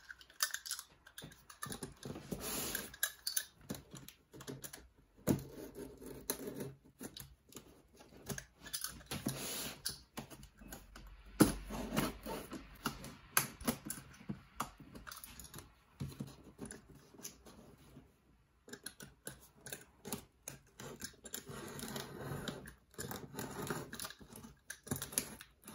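Utility knife scraping and slicing through packing tape on a cardboard box, with irregular clicks, scratches and cardboard rustle as the box is handled. One louder knock comes a little over eleven seconds in.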